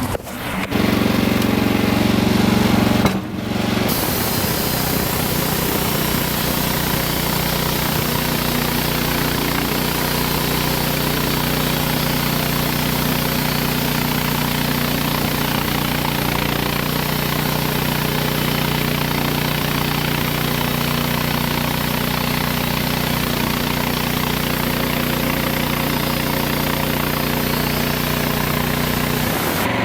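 Wood-Mizer LX55 portable bandsaw mill running steadily, its engine hum under the noise of the band blade sawing through a white pine log, with a brief break about three seconds in.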